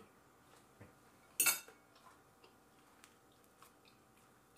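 A single short clatter of dishes about a second and a half in, with a few faint clicks around it, as food is picked up off a plate.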